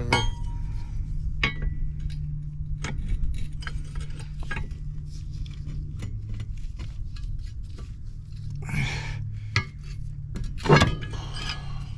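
Scattered metallic clinks and knocks of tools on a propeller nut being tightened with a windlass bar, over a steady low hum, with a louder knock near the end.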